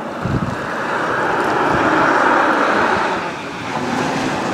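Gusty wind buffeting the microphone, a rushing noise over a fluttering low rumble that builds to a peak about two seconds in and then eases off.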